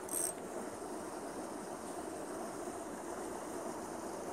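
Steady outdoor rushing noise, with a brief high hiss at the very start.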